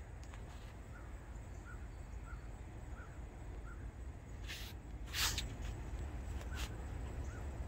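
Outdoor ambience: a steady low rumble with a bird's short chirp repeated about every two-thirds of a second, and a few brief harsh rasps about four and a half to six and a half seconds in.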